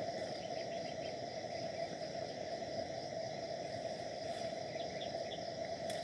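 Steady, unbroken chorus of insects, with a few short faint chirps about four to five seconds in.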